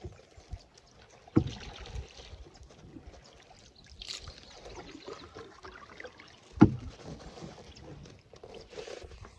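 Canoe paddle strokes: soft recurring swishes and drips of the paddle through calm water, with two sharp knocks of the paddle against the canoe, the second, about five seconds after the first, louder.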